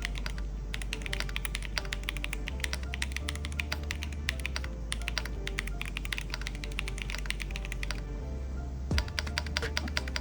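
Fast typing on a Cidoo V87 Pro aluminium mechanical keyboard: a rapid, continuous run of key clicks that pauses briefly about eight seconds in, then picks up again. Background music plays underneath.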